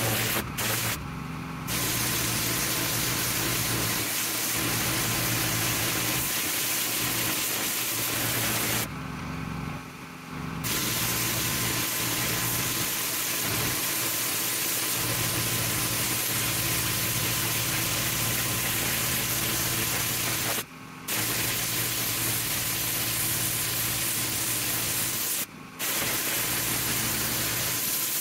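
Petrol-engined pressure washer blasting a drive: a steady loud hiss of the high-pressure spray from the lance over the even hum of its Honda GX390 engine. The spray cuts out briefly three or four times, once for nearly two seconds about a third of the way in, while the engine keeps running.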